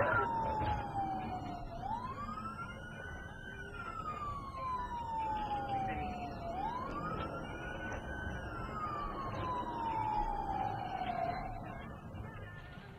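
Emergency vehicle siren in a slow wail, its pitch falling and rising about every five seconds over a low rumble of road noise, fading out near the end.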